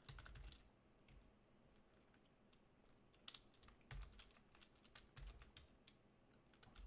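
Faint keystrokes on a computer keyboard, typed in short irregular runs with pauses between them, some keys landing with a soft thump.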